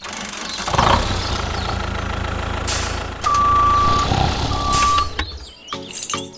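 A truck-type engine running steadily, with two long electronic beeps of a reversing alarm midway and short bursts of hiss around them.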